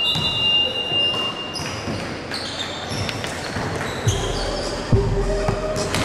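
A steady high-pitched tone for about the first second and a half over echoing gym noise. From about four seconds in come a few sharp slaps as basketball players slap hands, and faint music comes in.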